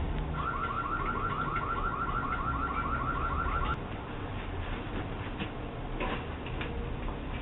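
Ring spotlight camera's siren sounding: a rapid electronic alarm of quick rising sweeps, about six a second, that cuts off suddenly a little under four seconds in. It is heard through the camera's own microphone, with the top end cut off.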